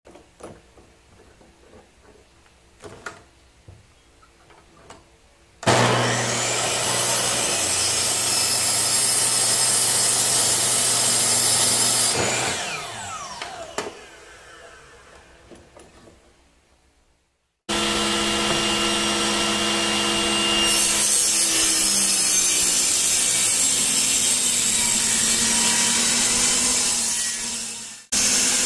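Light clicks of handling, then a Makita mitre saw starts abruptly and runs at full speed for about six seconds before its blade winds down with a falling whine. After a short silence a Makita table saw runs steadily as pine boards are ripped through it, its pitch dipping a little under the load, and it cuts off briefly near the end.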